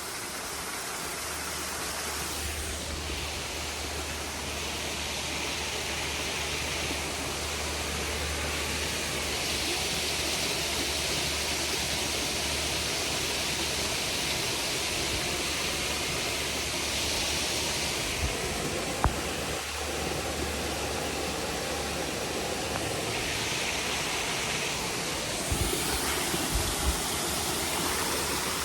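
Waterfall rushing steadily, a constant spray of falling water, with a few soft bumps about two-thirds of the way through and near the end.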